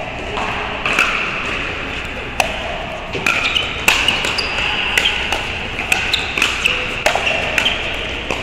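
Pickleball paddles striking a plastic pickleball in a rally, sharp pops. There are a couple of hits in the first three seconds, then a quick exchange of volleys at the net with pops coming several times a second. Fainter pops from games on neighbouring courts run underneath.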